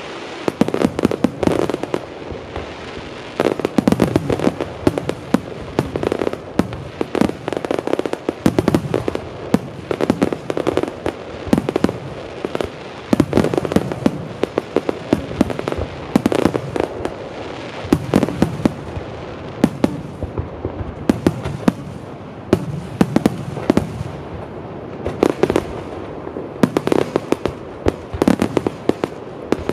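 Professional fireworks display in its finale: aerial shells bursting in rapid volleys, clusters of sharp bangs every second or two with no pause between them.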